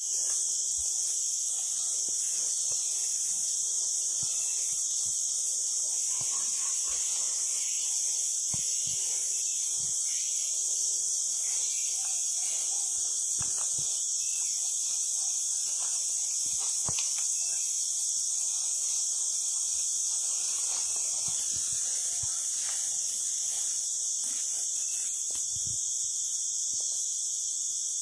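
Steady, high-pitched insect chorus shrilling without a break, with a few faint clicks underneath.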